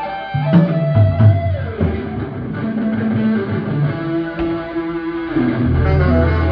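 Live band playing amplified music: electric guitar lines over low bass notes, during a sound check.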